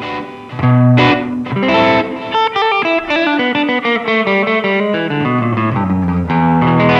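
2020 Epiphone Les Paul Custom electric guitar played on its rhythm (neck) pickup: a couple of strummed chords, then a run of picked single notes and arpeggios, and another chord near the end.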